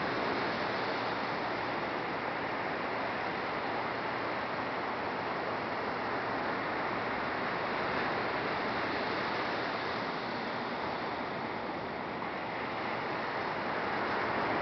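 Ocean surf breaking and washing up a sandy beach: a steady rushing noise that keeps an even level throughout.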